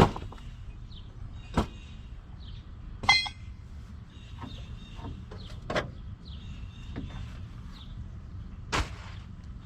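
Loose metal car parts and junk being handled and tossed onto a pile: about five sharp clanks and knocks a second or two apart, one with a brief metallic ring about three seconds in.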